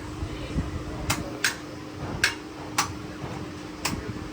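Light, sharp metallic clinks of tools or parts, about five at uneven intervals, over a steady low hum.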